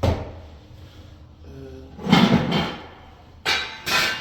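Short knocks and scrapes of objects being handled and moved: a knock at the start, a longer scrape about two seconds in, and two sharp knocks near the end.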